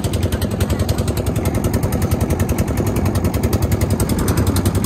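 Boat engine running with a fast, even chug.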